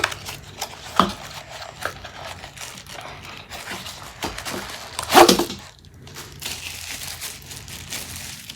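Packaging crinkling and rustling as tripod parts are pulled from the box, with scattered small knocks. A louder rustle comes about five seconds in.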